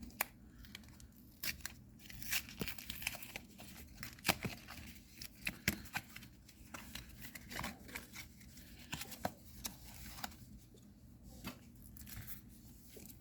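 A trading-card booster pack being torn open by hand, its wrapper tearing and crinkling in a string of irregular sharp crackles and rustles.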